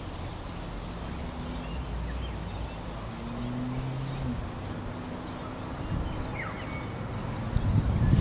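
Outdoor backyard ambience: a steady low rumble with a few faint bird chirps, growing into louder low buffeting near the end.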